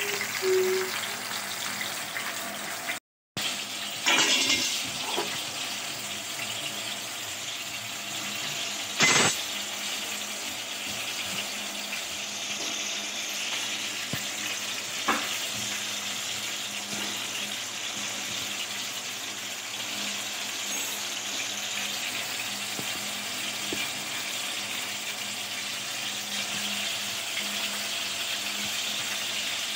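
Marinated chicken and vegetable skewers sizzling steadily on a hot ridged grill pan, with a few sharp clicks of metal tongs against the pan, the loudest about nine seconds in.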